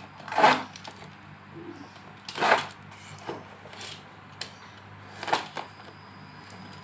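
Packing tape and brown paper wrapping being torn from a parcel by hand: three louder short rips about half a second, two and a half seconds and five seconds in, with fainter crinkles between.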